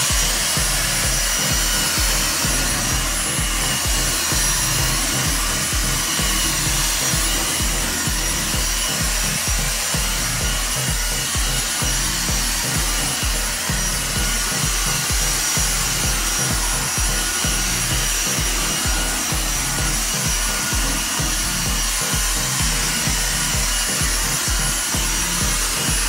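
Dyson V6 Motorhead+ cordless stick vacuum running steadily with a high whine over rushing air, its motorized brush-bar head rubbing in regular low strokes as it is pushed back and forth over a ribbed carpet mat.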